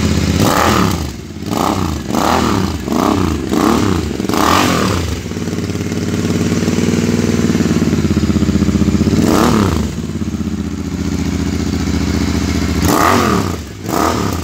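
Royal Enfield Interceptor 650's parallel-twin engine being revved in a run of quick throttle blips over the first five seconds, then idling steadily, with one more rev at about nine and a half seconds and a few blips near the end.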